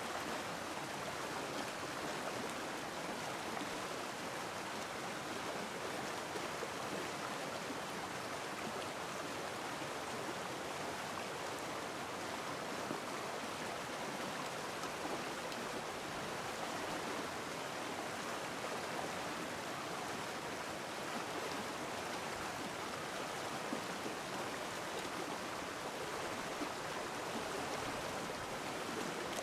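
Shallow, fast stream rushing and splashing over rocks, a steady even rush of water.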